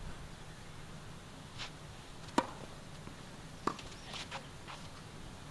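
Tennis ball bounced on the court before a serve: a handful of short, sharp knocks, the loudest about two and a half seconds in.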